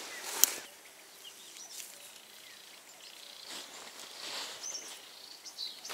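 Quiet outdoor ambience with scattered short bird chirps. One sharp click about half a second in is the loudest sound.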